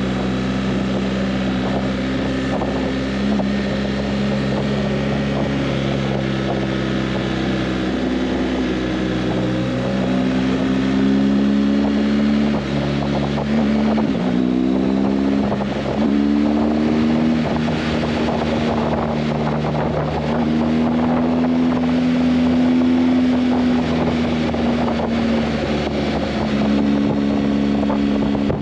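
Motorcycle engine heard on board while riding, with wind rushing over the microphone. The engine note holds steady, then drops and climbs again a few times around the middle, as with throttle changes or gear shifts.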